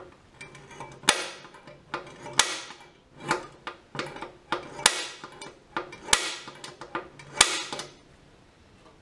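A steel pick clicking and scraping against a broken-off screw stuck in a threaded hole, as the screw is picked at to work it loose. The sharp clicks come irregularly over about eight seconds, with five louder ones about every second and a quarter.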